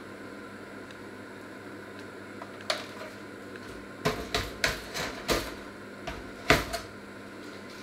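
A steady hum with a run of sharp, irregular clicks and knocks, like metal or crockery being tapped or knocked. The clicks start about a third of the way in and bunch together in the middle, the loudest near the end of the run.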